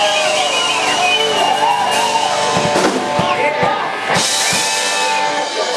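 Live rock band playing, with drum kit strokes and a cymbal crash about four seconds in, and voices over the music.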